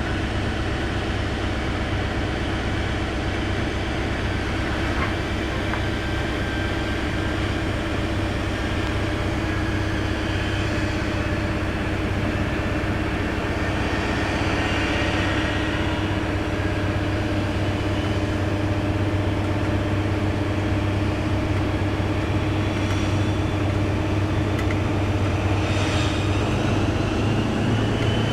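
Class 43 HST power car's diesel engine working under power as the train pulls away. It holds a steady low note that slowly grows louder, with a rising whine near the end.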